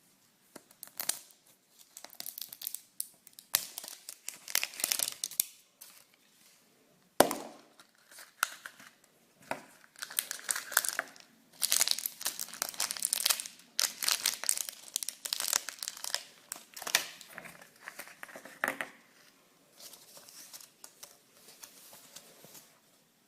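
Packaging wrappers being crinkled and torn open by hand, in irregular bursts, with one sharp snap about seven seconds in.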